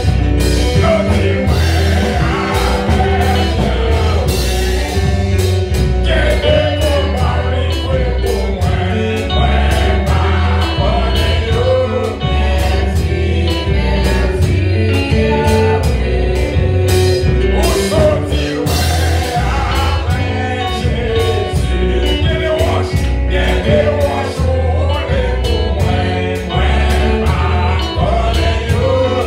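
Gospel praise song sung by many voices together, with band accompaniment, a strong bass and a steady beat.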